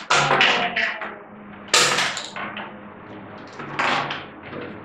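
Small hard plastic toy pieces knocking and clattering on a tabletop, in three sharp bursts about two seconds apart.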